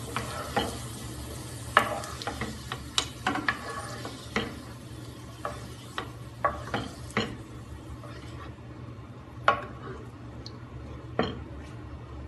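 Hot oil sizzling in a pot while a wooden spoon stirs and scoops out fried drumstick and potato pieces, knocking sharply against the pot several times. The sizzle dies down about two-thirds of the way through as the pot empties.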